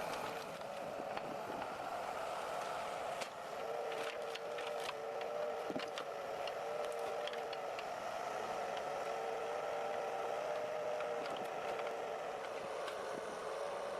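Timber forwarder's engine running steadily under its log-loading crane, with a whine that wavers slightly in pitch and scattered light knocks.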